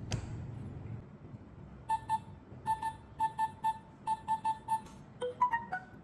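Avant Guard F11 smart lock keypad beeping once for each key pressed: eleven short beeps of the same pitch in quick, uneven groups as a ten-digit code and # are entered. They are followed near the end by a quick run of chime notes rising and falling, the lock's tone for accepting the code.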